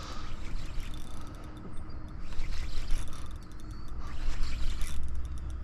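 Outdoor shoreline ambience: a low rumble of wind on the microphone that grows stronger in the second half, with scattered light clicks and crunches and a few faint bird chirps.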